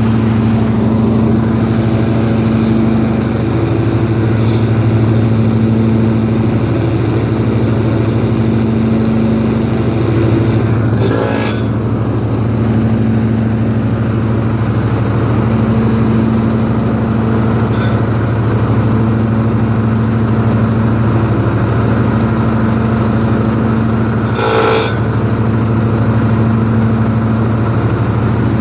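Husqvarna mower engine running steadily with the cutting deck engaged, with a metal grinding noise from the deck that comes whenever the deck is engaged, moving or standing, although the blades are tight. Three brief sharp clanks break through at intervals.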